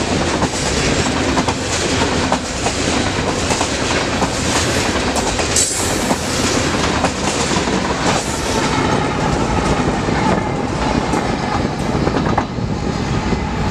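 Freight train of hopper cars passing close by, with steady wheel clatter and repeated clicks over the rail joints. In the second half the tail-end BNSF diesel locomotives go by.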